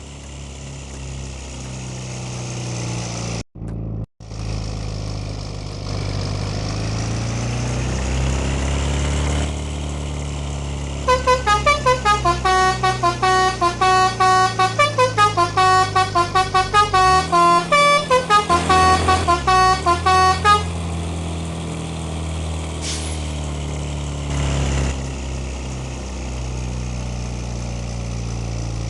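Bus engine running steadily while, about eleven seconds in, a telolet horn (a set of musical air horns) plays a fast tune of short stepped notes, about four a second, for roughly ten seconds, then stops.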